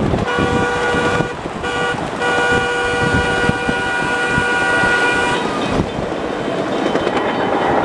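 Horn of a ride-on miniature railway's gas locomotive sounding for a road crossing: a long blast, two short toots, then a long blast held about three seconds, which stops a little after five seconds in. Underneath, the train's steady running rumble goes on.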